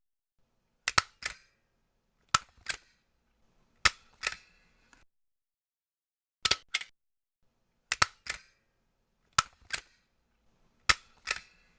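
A stapler worked seven times at a steady pace, about one stroke every second and a half. Each stroke is a pair of sharp metallic clicks.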